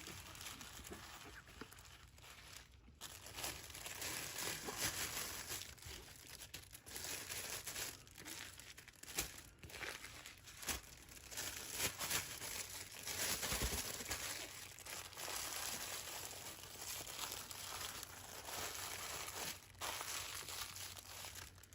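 Plastic packaging of a diamond-painting kit crinkling irregularly as it is handled, including the small bags of drills, with many small crackles.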